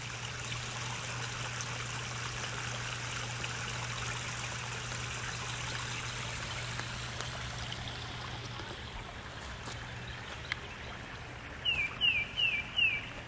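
Water trickling steadily into a garden pond, fading as it goes on. Near the end a bird calls four quick, falling chirps.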